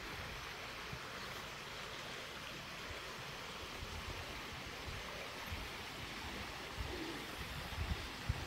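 Steady rushing of running water, with wind buffeting the microphone now and then, most strongly near the end.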